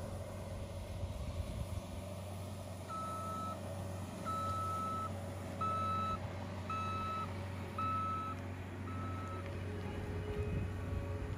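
New Holland L218 skid steer's diesel engine running steadily, with its reversing alarm beeping six times, about one beep a second, starting about three seconds in and stopping shortly before the end.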